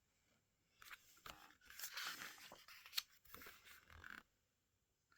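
Faint rustling and light crackling of a small paper booklet being handled, as a page is turned, with a few soft clicks.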